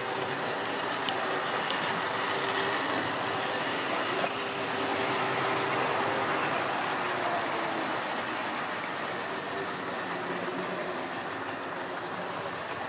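Model railway goods train running on the track: a steady whirr and rumble of wheels rolling on the rails, with a faint motor hum and a few light clicks.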